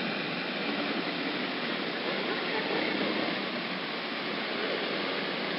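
CB radio receiver hissing with steady static in a gap between transmissions on an open channel.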